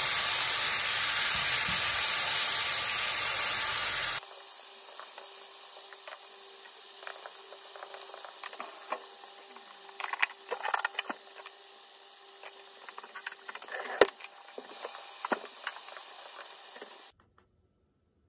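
Kimchi sizzling in hot pork-belly fat in a stainless-steel frying pan. The frying is loud for the first four seconds, then quieter, with scattered pops and clicks. It cuts off to near silence near the end.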